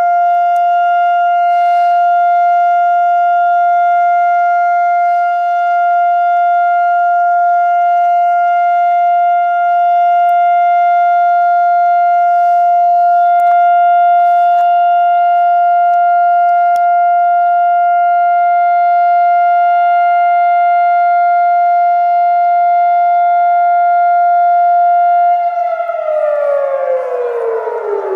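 Civil defense siren sounding one long steady tone: Israel's Holocaust Remembrance Day memorial siren. Near the end it winds down, its pitch falling.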